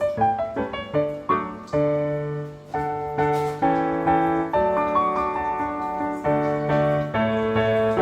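Background piano music: struck notes and chords in a slow, even pattern.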